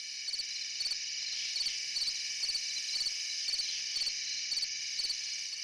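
Crickets chirping: a steady high trill with short chirps recurring through it.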